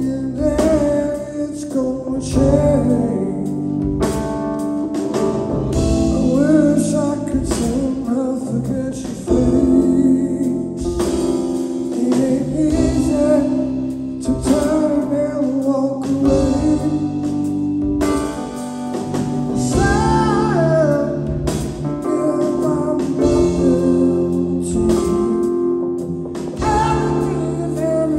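Live rock trio playing a slow, soulful song: a sung lead vocal over guitar, bass and drums.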